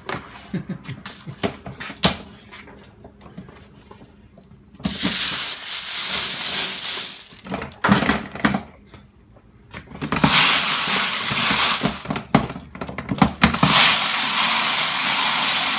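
Loose brass cartridge cases clinking and rattling: scattered clinks, then several long bursts of cases cascading. Near the end it settles into a steady rattling rush as the blue basket separator turns.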